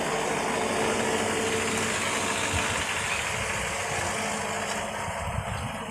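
2012 Kia Rio's engine running steadily after an ECU replacement, a little quieter near the end. The engine runs noisily, which the mechanic puts down to a problem with the engine timing.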